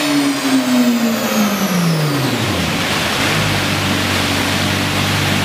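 Ferrari 458 Speciale's V8 through an Fi Exhaust valvetronic system, revs falling steadily from high after a dyno pull over about two and a half seconds, then settling into a steady idle.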